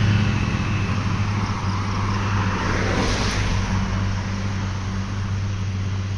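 A car driving past close by, its engine and tyre noise swelling to a peak about three seconds in and then fading, over a steady low hum.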